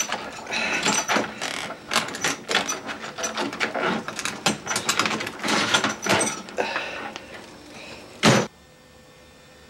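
Busy handling noises of irregular rustles, clicks and knocks, as gloved hands work with objects on a hard surface. One loud thump comes near the end, and then only a faint steady hum is left.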